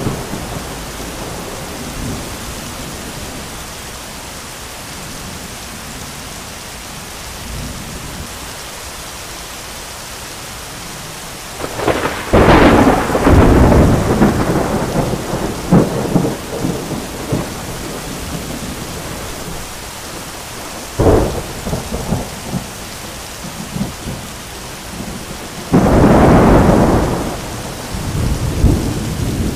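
Heavy rain pouring steadily, broken by thunder: a sudden crack about twelve seconds in that rumbles on for several seconds, a shorter sharp crack around twenty-one seconds, and a loud crash near the end that rolls on.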